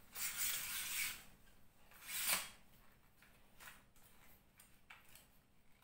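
A tripod light stand for a Neewer ring light being handled and unfolded: a rustling scrape in the first second, a sharper clack of the stand's tubes about two seconds in, then a few faint knocks.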